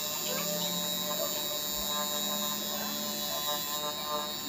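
Tattoo machine running with a steady electric buzz.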